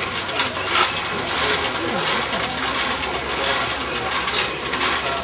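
Hand-cranked rope-making machine being turned, with a steady irregular clatter of small clicks and rattles from its gears and hooks as the strands are twisted into rope.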